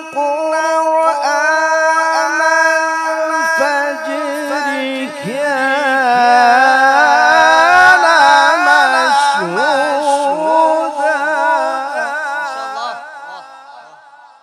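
A male qari reciting the Quran in long, drawn-out melodic phrases, his voice winding up and down in ornamented runs. It trembles in a quick vibrato in the second half and fades out near the end.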